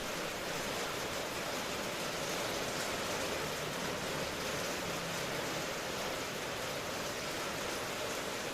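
Steady rain falling, a continuous even hiss without a break or a thunderclap.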